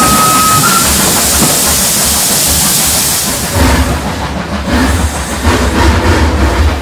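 Steam train sounds: a steady whistle tone ends about a second in, over a hiss of steam. Past the halfway point the hiss gives way to a rhythmic low rumble and clatter of the train running on the rails.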